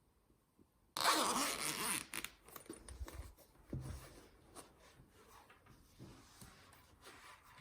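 A zip being pulled open in one quick run, most likely the zip on the headphones' carrying case. It is followed by rustling and light knocks as the contents are handled.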